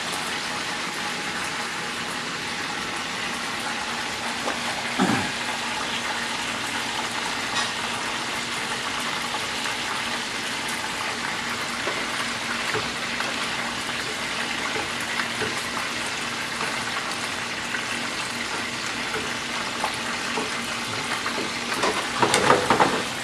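Chicken pan drippings sizzling steadily at medium heat as their water boils off, leaving the fat and the browned fond. A faint low hum runs underneath, and there is a single knock about five seconds in.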